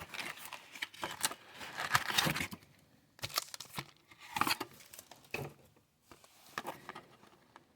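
Blaster boxes of trading cards being ripped open by hand and their packs handled: irregular bursts of tearing and crinkling of cardboard and wrapping, with short pauses between them.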